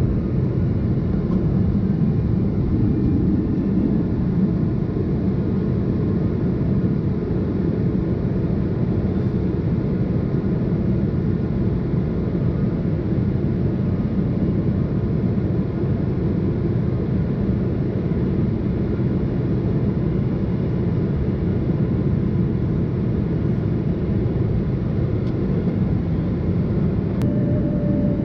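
Steady low rumble inside a jet airliner's cabin in flight: engine and airflow noise heard through the cabin wall near the wing.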